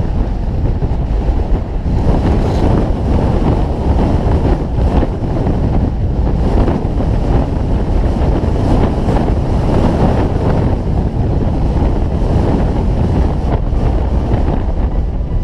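Wind buffeting the microphone of a camera riding on a Jeep driving a dirt and mud trail, mixed with the Jeep's engine and tyre noise: a loud, steady rumble.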